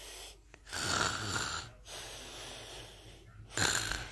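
A person snoring in a slow breathing cycle: two loud snores, one about a second in and one near the end, with quieter breath sounds in between.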